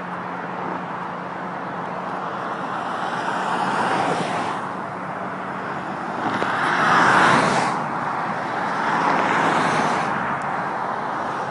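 Road and wind noise of a car driving at speed, heard from inside the car. It swells a few times and is loudest about seven seconds in.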